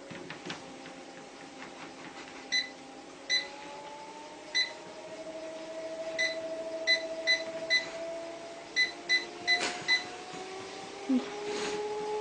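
Home treadmill running with its motor whine slowly rising in pitch as the belt speeds up, while the control panel gives about eleven short electronic beeps in quick clusters as its buttons are pressed.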